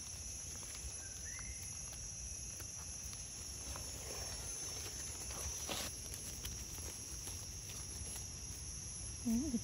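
Forest ambience: a steady high-pitched drone of insects, with a short rising chirp about a second in and a single sharp tap a little past the middle.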